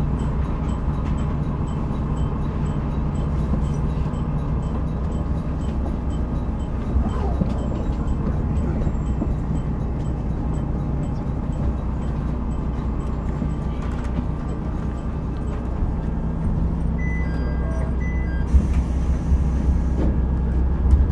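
SKR310-series diesel railcar, heard from inside the car: a steady low engine hum. About seventeen seconds in there are a few short electronic beeps, then a brief hiss.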